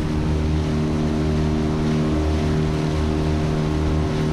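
Honda 8 hp twin-cylinder four-stroke outboard running steadily at speed, with water rushing and spraying along the aluminum hull.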